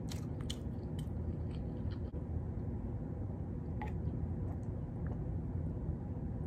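Close-mouthed chewing with a few sharp wet clicks and smacks in the first two seconds. A single click about four seconds in comes as a plastic water bottle is raised to drink, all over a steady low hum.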